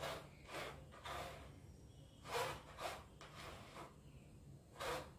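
A spoon scraping and tapping against a plastic strainer over a bowl of puréed mango: a few faint, short scrapes spread out, the loudest a little past halfway and near the end.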